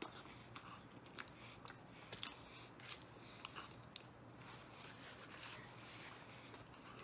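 A man chewing a mouthful of deep-dish pizza with his mouth open, faint and close: irregular soft wet clicks and smacks of the jaw and lips.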